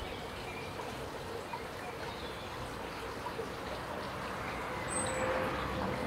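Steady outdoor background hiss with faint bird calls, including one short, high chirp about five seconds in.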